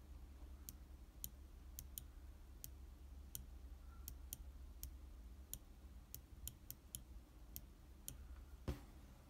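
Microswitch button on an opened computer mouse's circuit board clicking under a fingertip, more than a dozen sharp clicks at uneven intervals. One louder knock comes near the end.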